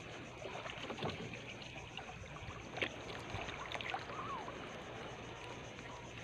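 Water lapping and sloshing against a small outrigger boat's hull and bamboo float, with a few light knocks.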